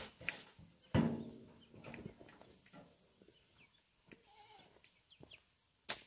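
A metal wheelbarrow set down with a clanging knock about a second in, followed by a hoe scraping and chopping through loose soil. A short farm-animal call, bleat-like, is heard among the scrapes.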